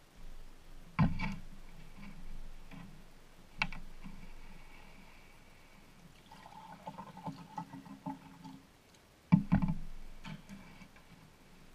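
Kitchen knocks and clunks: a loud thump about a second in and another near the end, with a lighter knock between, and a steady buzzing hum lasting about two seconds just past the middle.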